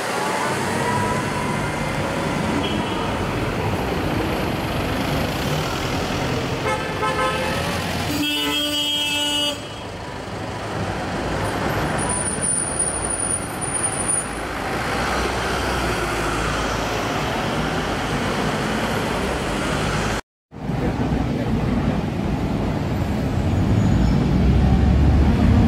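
City street traffic with supercar engines running, including a Lamborghini Aventador SV's V12. A car horn sounds for about a second around eight seconds in.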